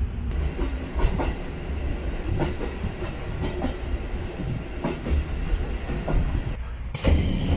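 Kushiro Shitsugen Norokko sightseeing train running, heard from inside a passenger car: a steady low rumble with irregular clacks of the wheels over the rail joints.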